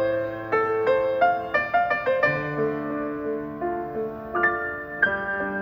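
Grand piano played in a slow, gentle melody over held chords. The struck notes ring on and fade, with a new note or chord about every half second.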